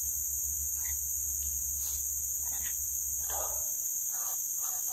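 A steady, high-pitched chorus of forest insects sounding in two unbroken high bands, with a few faint soft rustles over it.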